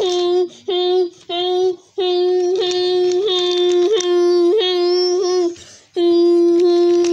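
A child's voice imitating a train horn: held notes on one steady pitch. A long note breaks off about half a second in, then come two short blasts and two long ones.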